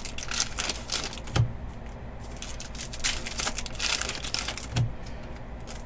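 Trading cards being handled and sorted on a table: quick rustling and clicking of card edges and packs, with two soft thumps, about a second and a half in and about five seconds in.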